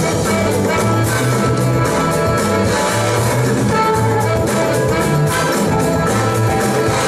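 Loud dance music with a steady drum beat and a repeating bass line, playing without a break.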